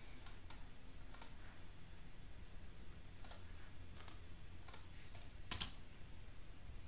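Scattered sharp clicks from a computer mouse and keyboard, about eight in all, spread unevenly across a few seconds.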